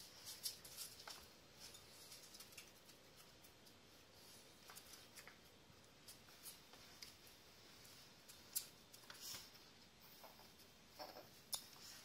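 Faint, scattered clicks and scuffs of two West Highland White Terrier puppies' claws and paws on a hard floor as they wrestle, a little busier near the end.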